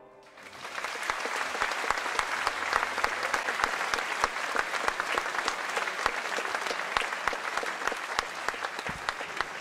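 Audience applauding at the end of a song, the clapping swelling in within the first second and then holding steady.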